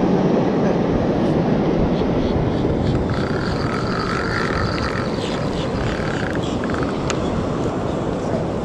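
Steady outdoor rushing noise, with a faint wavering higher sound from about three to six and a half seconds in.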